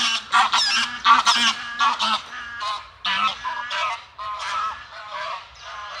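A flock of geese honking overhead: many loud, overlapping calls that grow fainter toward the end.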